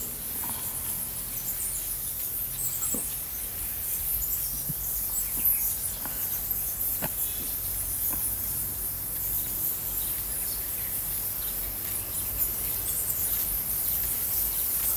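A bat colony squeaking and chittering in a steady high-pitched chorus, with a few soft knocks.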